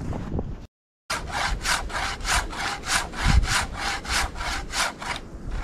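Hand saw cutting into a large burl on a living birch trunk, in quick even back-and-forth strokes, about three a second. The strokes begin about a second in, after a brief silent gap, and stop just before the end.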